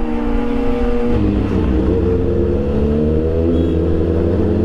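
Kawasaki Ninja ZX-6R's inline-four engine running as the bike is ridden; about a second in, the throttle opens and the engine pulls, its pitch rising slowly through the gear.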